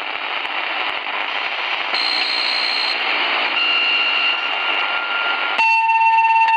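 Portable shortwave radio receiver tuned around 2130 kHz, the railway radio band, giving steady hiss with faint whistling tones that change pitch as it is stepped a few kilohertz up and down. Near the end a loud steady beep tone with overtones comes in for about a second and the hiss drops under it.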